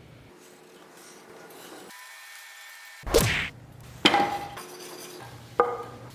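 Three sharp knocks of wood and tools being handled on a workbench, the second and third with a brief ringing tone.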